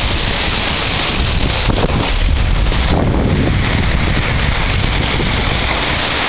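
Strong storm wind buffeting the microphone with a low rumble, over a loud, steady rush of heavy rain and hail.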